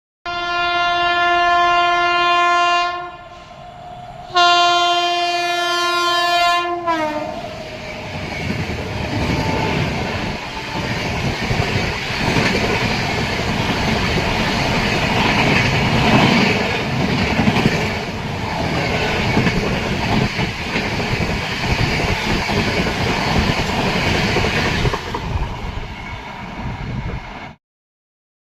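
Indian Railways express train passing at speed. The locomotive's horn sounds two long blasts, the second dropping in pitch as the engine goes by. Then the coaches' wheel and track noise runs loud and steady for about twenty seconds before stopping abruptly.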